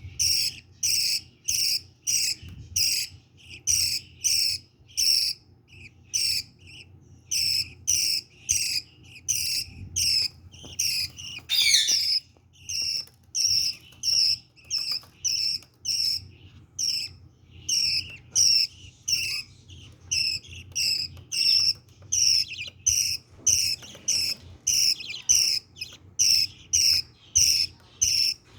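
Budgerigar chicks giving begging calls: short, high, raspy cheeps repeated about twice a second, with a brief pause partway through and one longer rising call near the middle.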